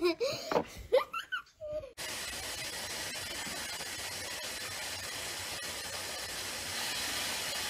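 A young child's high voice and laughter for about the first two seconds, then a sudden change to a steady hiss of water running into a bathtub, growing a little louder near the end.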